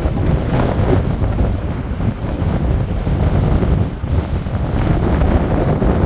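Strong wind buffeting the microphone: a heavy, uneven low rumble with a hiss that swells and fades in gusts.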